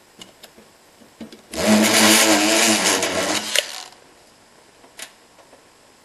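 Homemade electric lock pick, an electric shaver driving a hacksaw-blade pick, buzzing loudly for about two and a half seconds as it vibrates the key pins of a low-security pin-tumbler lock, knocking the driver pins up toward the shear line. A few light metallic clicks from the lock and tension wrench come before and after the buzz.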